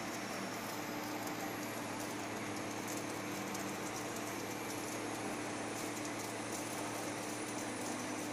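Flake ice machine running: a steady motor hum under a constant patter of ice flakes dropping from the machine onto the pile of flake ice below.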